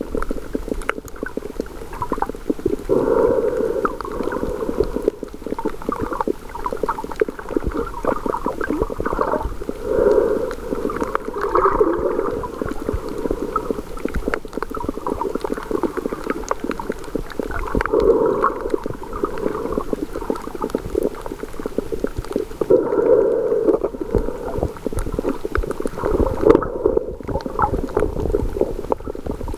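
Muffled underwater sound heard through a camera held below the surface: a constant low rumble of moving water that swells into louder, rushing surges every few seconds.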